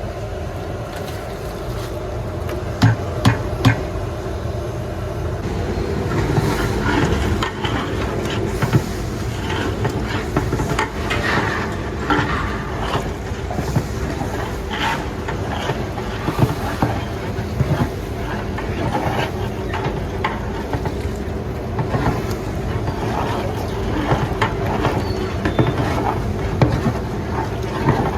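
Bulk cooking in a large commercial pot: a steady rumble under a big pot, with a metal ladle scraping and knocking against the pot as the food is stirred, three sharp knocks about three seconds in.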